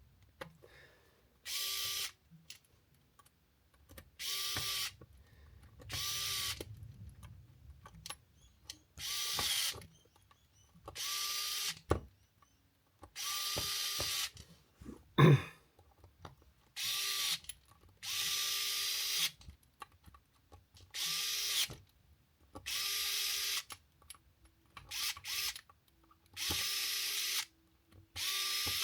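Small cordless drill driving the beadlock ring screws on a 1/10 RC crawler wheel in repeated short bursts, about fourteen, each spinning up and stopping after under a second or so. Two sharp clicks fall between bursts, the louder one about halfway through.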